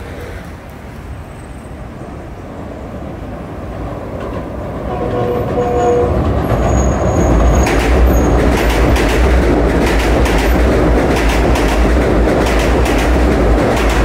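Long Island Rail Road electric train passing overhead on an elevated steel viaduct. It grows louder from about four seconds in to a steady heavy rumble, with rapid clicking of wheels over the rail joints through the second half.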